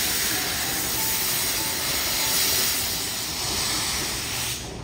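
Steam locomotive venting steam in a loud, steady hiss as it backs slowly, the hiss cutting off suddenly near the end.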